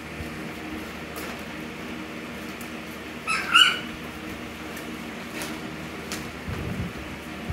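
Alaskan Klee Kai puppies at play. One puppy gives two short, high-pitched yips in quick succession about three seconds in, over a low steady hum and a few faint knocks.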